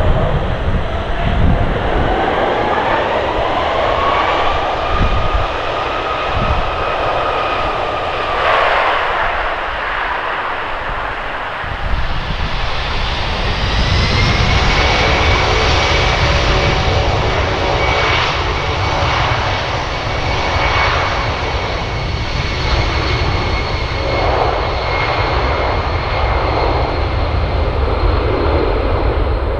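A Canadair CC-144 Challenger's jet engines whining on landing, the whine rising in pitch over a few seconds and then holding. About halfway through comes a Lockheed CC-130J Hercules approaching on its four turboprops with six-bladed propellers: a steady high whine over a buzzing drone, with a low rumble underneath.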